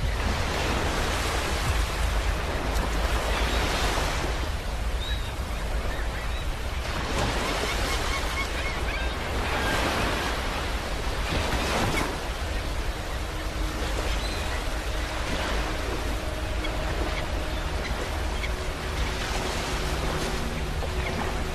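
Sea waves breaking and washing on a beach, the surf swelling and falling back every few seconds. A faint low steady hum runs under it in the second half.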